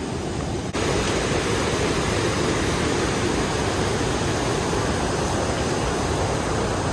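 Steady rushing noise with no distinct events, stepping abruptly louder a little under a second in and then holding steady.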